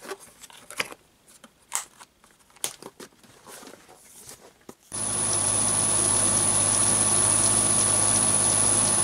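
Scattered light clicks and knocks of hands working the latch of an aluminium drill case. About five seconds in, a Chinese mini lathe comes in running with its chuck spinning: a steady hum with a high, constant whine.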